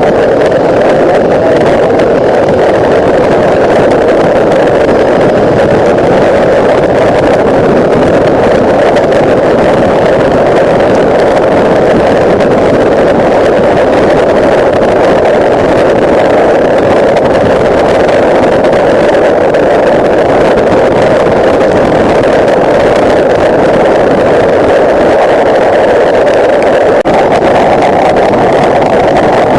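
Steady rush of wind and engine from a Bajaj Dominar 400's single-cylinder engine cruising at a constant speed, loud and unchanging, with no revving or gear changes.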